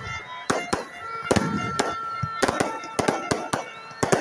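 Fireworks going off: an irregular, rapid series of sharp bangs and cracks, with music playing underneath in long held tones.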